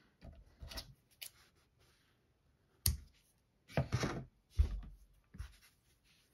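Hands handling a crocheted yarn heart and its yarn tail on a tabletop: soft rustling and rubbing, a sharp click about three seconds in, and a couple of light knocks on the table.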